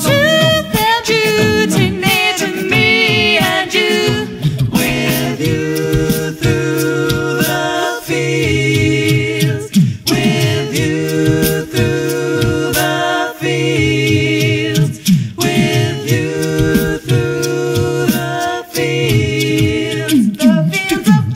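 A cappella vocal music: several voices singing together in harmony.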